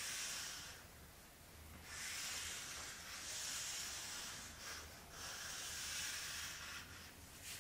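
Felt-tip marker drawn across flipchart paper, a scratchy hiss in three long strokes, the longest in the middle.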